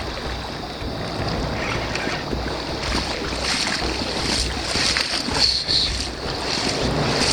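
Swollen river current rushing, with wind buffeting the microphone.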